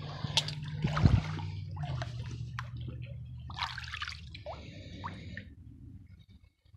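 Shallow creek water splashing and dripping as a hand lifts a broken glass bottle piece out of it, with a couple of sharp clicks in the first second. The water sounds die away toward the end.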